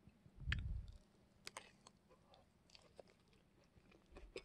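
Faint chewing of a soft sweet tamale, with a dull low thump about half a second in and a few small, sharp clicks.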